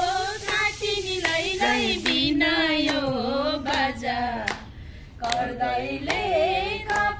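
A few people singing a song together while clapping their hands in time. The singing breaks off briefly about five seconds in.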